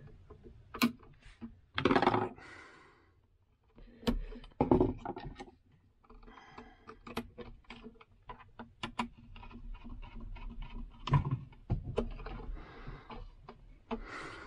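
Hand tools and wire being handled at an inline extractor fan's plastic terminal box: scattered clicks and taps as pliers and a screwdriver work the wire ends, with a few louder rustling handling noises.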